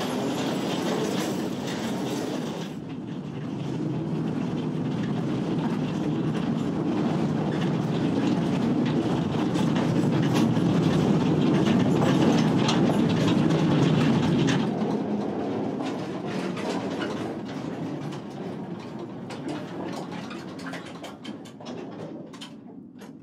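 Narrow-gauge mine train running along its track through a mine tunnel, with a steady rumble and its wheels clacking on the rails. It grows louder to about halfway through, then fades away.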